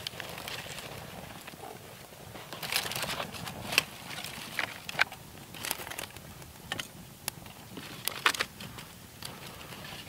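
Freshly lit kindling fire of dead sagebrush and dry sticks crackling as it catches, with irregular sharp snaps and pops. Twigs are being handled and laid on.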